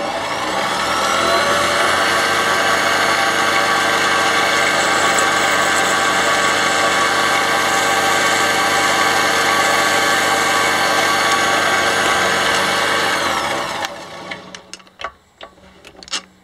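Small benchtop metal lathe running, its motor and gearing whining steadily as a three-jaw chuck spins square plastic stock being turned into bearing rollers. It comes up to speed in the first second or so, runs evenly, then winds down about 13 seconds in, followed by a few light clicks.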